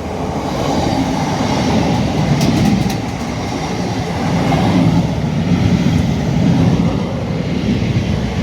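A train passing close by, a loud steady rumble of wheels on rails with a little clatter about two and a half seconds in.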